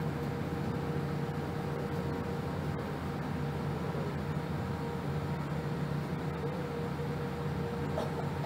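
Boeing 787-8 engines running at low taxi power, heard inside the cabin over the wing: a steady hum with a faint steady whine while the airliner turns on the runway to line up for takeoff.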